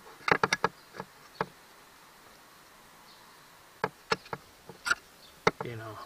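Plastic and metal parts of an opened outboard remote control box clicking and knocking as they are handled: a quick run of about four clicks near the start, a couple more soon after, then several scattered clicks in the second half.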